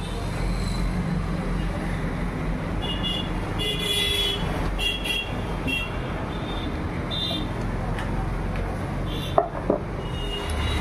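Steady background rumble of road traffic with short high toots of vehicle horns, and two sharp clicks about nine and a half seconds in from a screwdriver working on the metal rotary hook assembly of a sewing machine.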